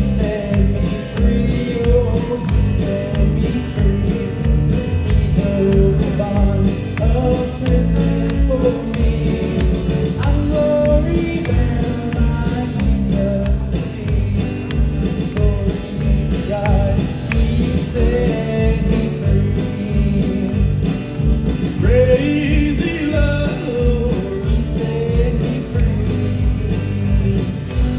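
Live country-gospel band playing the final chorus of a song: a sung melody over acoustic guitar, electric bass, keyboard and drums with a steady beat.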